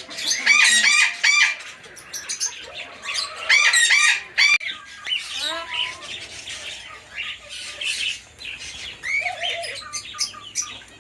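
Caged birds calling together: a mix of sharp, high chirps and squawks, loudest in two dense bursts in the first half and then thinner chirping.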